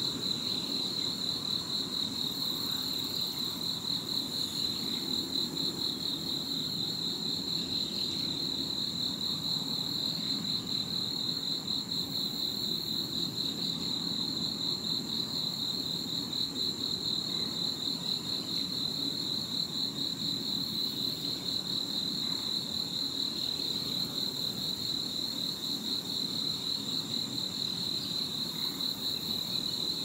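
Insects trilling without a break: one high, fast-pulsing trill holds steady throughout, over a low, even background rumble.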